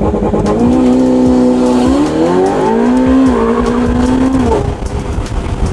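Ferrari 488 Pista's twin-turbo V8, through a Novitec exhaust, pulling hard on a launch-control start: the engine note climbs, holds, climbs again and dips briefly at a gear change about three seconds in. It falls away as the throttle comes off about four and a half seconds in.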